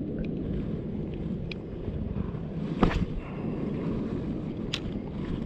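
Steady low drone of a light aircraft's engine, with wind buffeting the microphone. Two brief sharp clicks come about three seconds in and again near the end.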